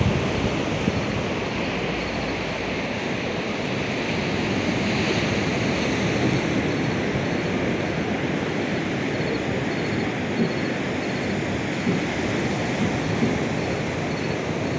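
Steady rush of sea surf on a beach, mixed with wind blowing on the microphone.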